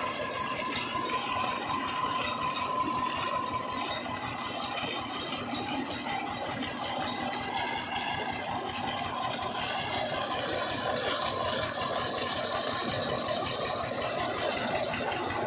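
Eicher diesel tractor engine running steadily while it drives a water pump, with a rattling clatter, and water gushing from the pump's outlet pipe and splashing into the channel.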